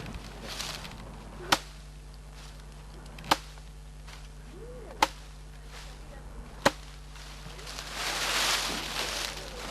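Four sharp smacks, evenly spaced a little under two seconds apart, then a rustling hiss near the end.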